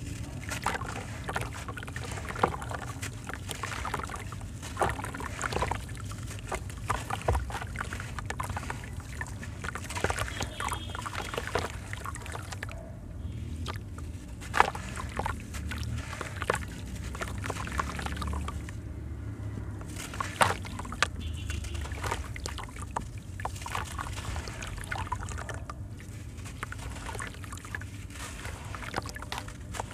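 Soft block of dried white sand cement crumbling in the hands over a tub of water: gritty crunching with many sharp crackles as pieces break, and sand and chunks splashing into the water.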